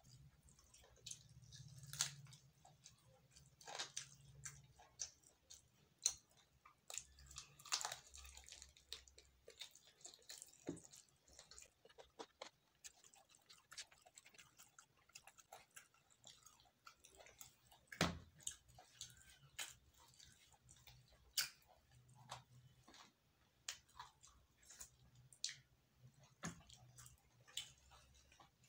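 A man eating chicken and rice by hand: quiet chewing and mouth smacks, with scattered short clicks.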